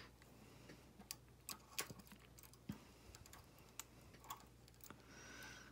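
Faint, irregular light clicks of a metal latch tool working against the needles of a flatbed knitting machine during a hand bind-off.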